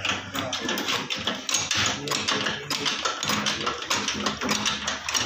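Rapid, irregular metallic tapping and clicking, several taps a second, typical of workshop clatter.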